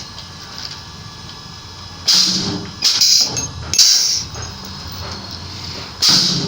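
Spot welder firing in short buzzing, crackling bursts of about half a second each: a few in quick succession around two to four seconds in, then another near the end.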